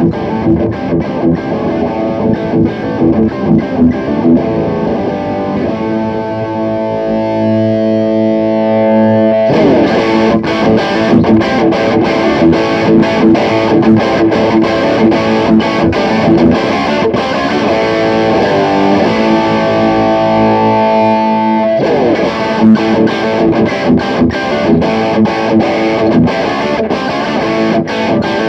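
Electric guitar (Fender Stratocaster on its bridge humbucker) played through a Fire Custom Shop Ultimate Distortion pedal into a Peavey Bandit 112 combo amp. Quick, heavily distorted picked riffs alternate with held, ringing chords, twice.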